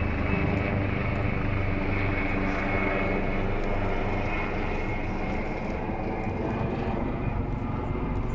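Helicopter flying overhead: a steady engine and rotor sound with a strong low rumble, easing off a little near the end.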